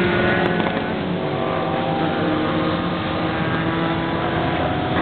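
Sport motorcycles riding through a corner on a racetrack, several engine notes rising and falling in pitch with the throttle and gear changes, easing off as the bikes pull away.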